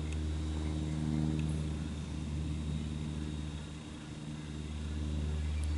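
A steady low mechanical hum from a running machine, swelling slightly and dipping a little past halfway.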